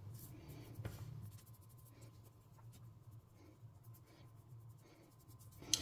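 Faint soft rubbing of hands working a greasy homemade cream into the skin, over a low steady hum, with a sharp click near the end.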